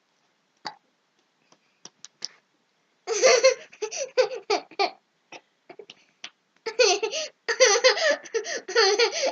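A young child hiccups a few times, short sharp gulps, then breaks into repeated high-pitched giggling laughter in two long runs with a short pause between.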